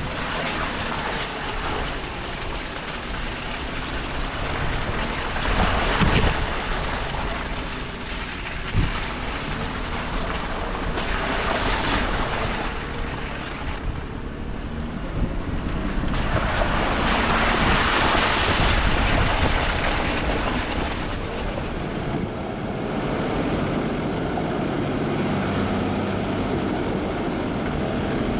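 A vehicle engine running steadily under a rushing noise that swells and fades several times.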